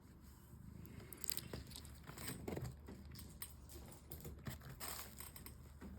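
Handling noises: packaging rustling and crinkling, with small irregular clicks and knocks as slabs are unwrapped and handled.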